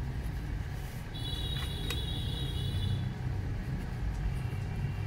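Steady low rumble of road traffic. A thin, high steady tone sounds from about one to three seconds in, with a short click near the middle.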